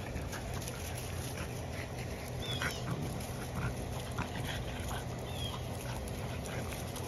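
French bulldog puppies play-fighting, giving a few short, high squeals and yips over a steady low hum.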